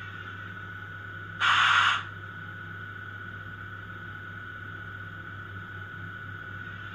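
ESU LokSound 5.0 sound decoder in an HO-scale SBB Ee 6/6 electric shunting locomotive model, playing the standing locomotive's sound through the model's small loudspeaker: a steady electric hum with a high steady whine. About a second and a half in comes a short, loud hiss lasting about half a second.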